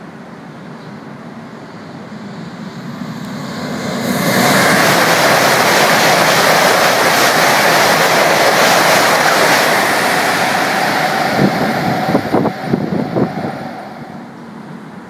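High-speed train passing through a station without stopping: a rushing noise builds, turns suddenly loud about four seconds in as the train arrives, and holds steady as the wheels and air rush past for about six seconds. A few sharp crackles come near the end, and the noise then fades away.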